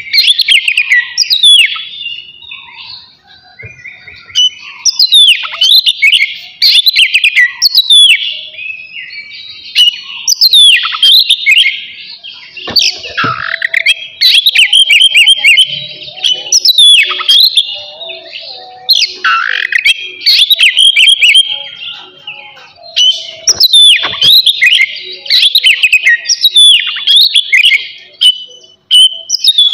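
Oriental magpie-robin (kacer) singing loudly in a fast, varied song of sharp down-slurred whistles and quick chattering notes. The phrases come in bursts every second or two, with brief lulls between them.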